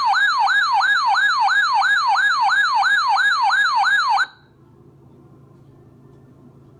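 Electronic siren sounding as an emergency alert tone: a loud rising-and-falling sweep repeating about three times a second. It cuts off suddenly about four seconds in, leaving a faint low hum.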